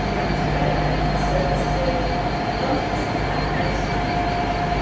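Class 66 diesel freight locomotive, with its two-stroke V12 engine, idling while it stands at the platform. It gives a steady low rumble with a constant high hum over it.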